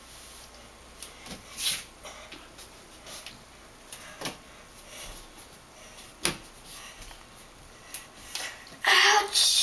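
Soft scattered knocks and rubs of bare hands and feet shifting against plastered hallway walls, with a sharper click a little after six seconds in. Near the end a child's voice comes in loudly.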